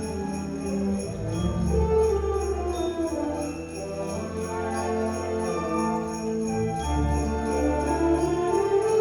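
School orchestra playing a slow holiday piece in sustained chords, with sleigh bells shaken in a steady rhythm over it.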